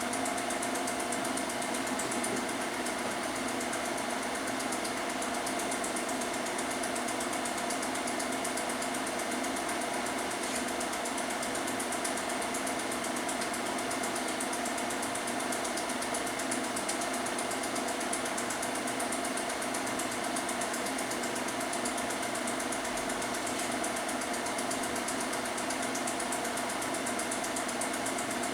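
Film projector running steadily, a continuous mechanical whirr with a fast, even clatter.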